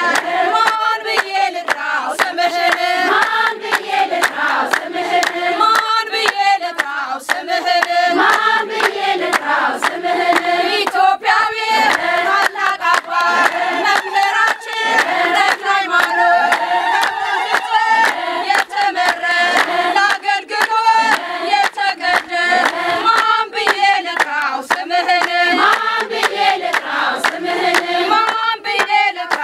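Group of women singing an Ethiopian Orthodox hymn together, with hand clapping throughout.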